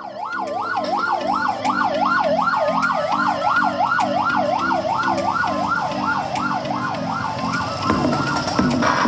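A siren warbling fast, its pitch rising and falling about three times a second over a repeating low musical pattern. It fades out near the end as fuller music comes in.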